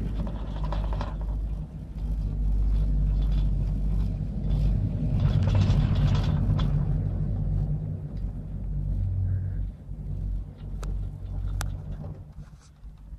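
Low mechanical rumble of a Doppelmayr three-seat chairlift heard from the chair as it passes a lift tower: the haul rope and grip running over the tower's sheaves, carried through the chair. The rumble swells after the tower and eases later, with a few sharp clicks near the end.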